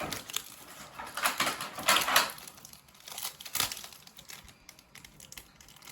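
Foil wrapper of a Japanese Pokémon card booster pack crinkling and rustling as it is handled and opened. The rustling comes in irregular bursts, loudest about one to two seconds in, with a sharp click a little past three and a half seconds.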